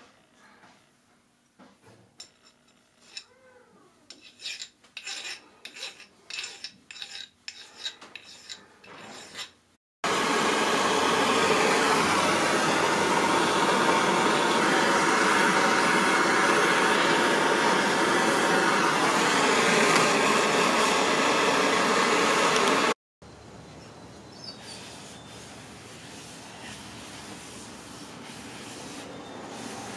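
A torch hissing loudly and steadily for about thirteen seconds as it scorches the surface of a wooden bandsaw box, starting and stopping abruptly. Before it, faint repeated scraping strokes of wood being shaped by hand; after it, a low steady hiss with light rubbing.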